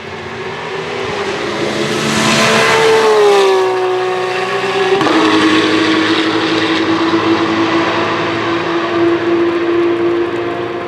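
Racing cars passing at speed. One engine's note falls in pitch as it goes by about three seconds in, and a second car's engine cuts in sharply about five seconds in and holds a fairly steady note.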